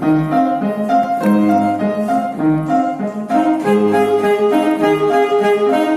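Piano playing an introduction in a steady, repeating rhythm; about three seconds in, a saxophone comes in over it with held melody notes.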